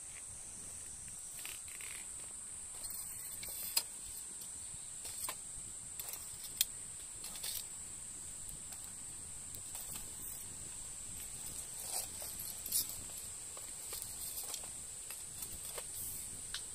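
Steady high-pitched drone of cicadas, with scattered light clicks and taps over it, two of them sharper in the first half.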